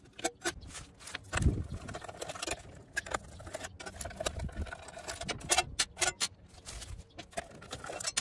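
Screwdriver taking the screws out of an engine computer's metal case: irregular metallic clicks, ticks and scrapes of the tool and screws against the lid, with a duller knock about a second and a half in.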